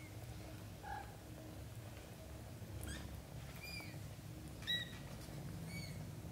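Very young British shorthair kittens mewing: about four short, high-pitched mews in the second half, the loudest a little before the five-second mark.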